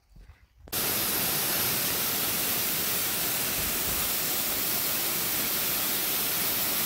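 Faint footsteps on a dirt trail, then, under a second in, the loud steady rush of a waterfall pouring into a pool starts abruptly and continues without change.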